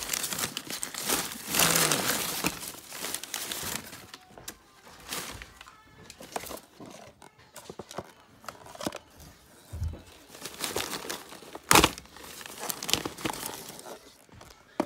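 Crumpled newspaper packing rustling and crinkling as hands dig through a shipping box, loudest in the first few seconds. Then quieter handling of a plastic deli cup, with a sharp knock about twelve seconds in.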